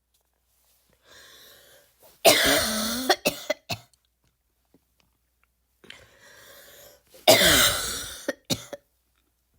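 Two deliberate barking coughs from a person, about five seconds apart. Each is a loud, voiced hack lasting about a second, with a quieter breath drawn in just before it and two short coughs right after it.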